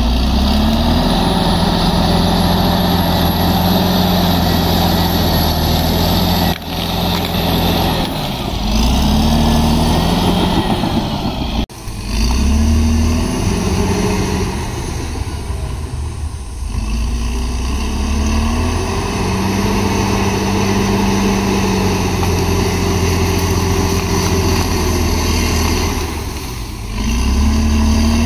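Caterpillar D7R crawler bulldozer's diesel engine working under load as the blade pushes soil, its pitch rising several times as it revs up and settling back between pushes.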